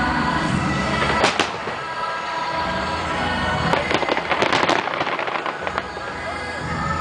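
Aerial fireworks: two sharp bangs about a second in, then a rapid cluster of crackling pops around four to five seconds in, over accompanying music.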